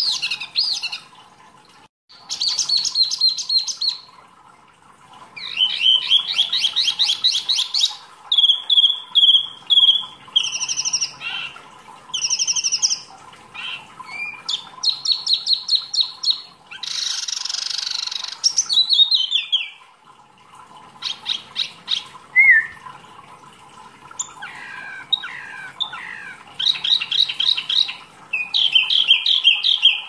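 A caged wambi mini songbird singing in a long series of phrases. Each phrase is a rapid run of high, clipped notes or a quick trill, with short pauses between them. A faint steady hum runs underneath.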